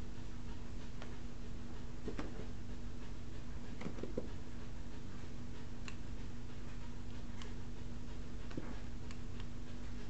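Scattered light clicks and taps over a steady low hum: a cat's paws and claws on carpet as it pounces after a laser dot.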